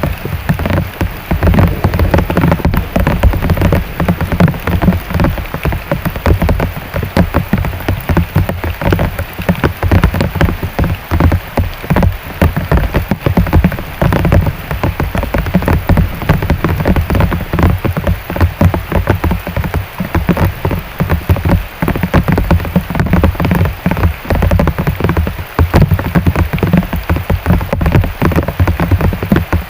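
Heavy rain pouring down steadily, a dense, unbroken patter of countless drops striking a surface.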